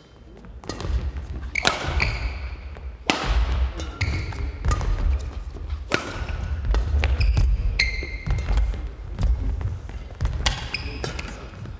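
A fast badminton singles rally: a racket strikes the shuttlecock with a sharp crack about once a second, between short squeaks of court shoes and heavy thuds of footwork and lunges on the sprung court floor.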